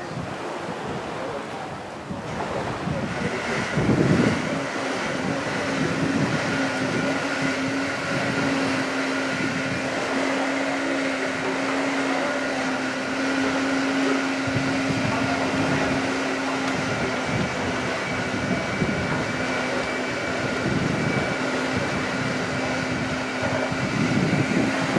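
A steady mechanical hum of a few fixed tones, like a fan or motor, sets in about three seconds in and holds, over a constant rushing noise. A brief louder burst comes about four seconds in.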